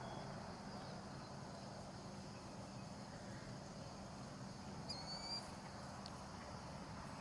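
Faint background with a low steady hum, and a short, quick series of high chirps from a bird about five seconds in.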